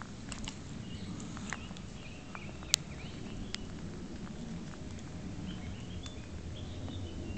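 Forest ambience: faint short bird chirps over a low rumble, with scattered light clicks and rustles of footsteps on dry leaf litter and one sharper click a few seconds in.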